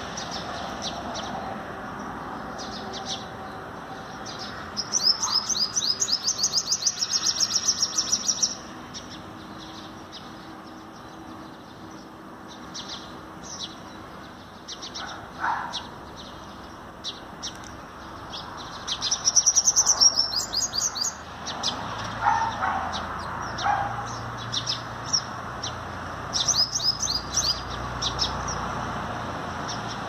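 Purple sunbird singing: three runs of high, rapid trilling notes, the longest about three and a half seconds, with single sharp chirps between them.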